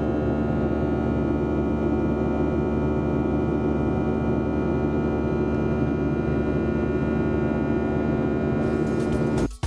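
Steady drone of a Boeing 737's turbofan engines heard inside the cabin from a seat beside the engine, with several steady hum tones running through it. It cuts off abruptly near the end.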